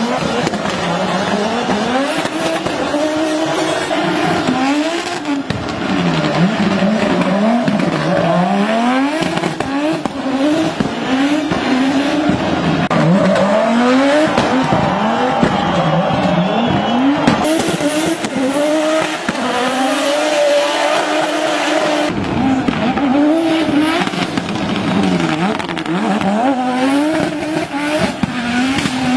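Audi Sport Quattro S1's turbocharged five-cylinder rally engine revving hard and lifting off again and again, its pitch rising and falling as the car is thrown sideways through tight turns, with tyres squealing.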